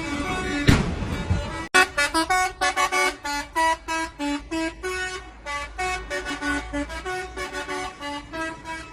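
Truck's telolet horn, a multi-tone horn, playing a quick tune of short stepped notes that keeps going, starting abruptly about two seconds in.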